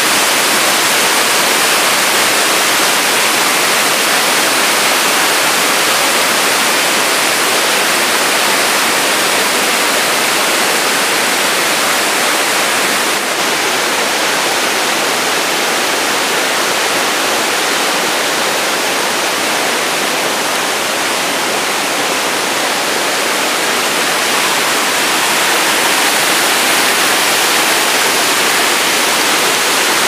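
Loud, steady rush of white water tumbling over rocks in a rocky river cascade.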